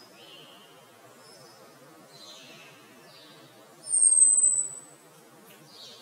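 Songbirds calling: scattered faint short chirps, and about four seconds in one loud, thin, very high whistle lasting most of a second that falls slightly in pitch.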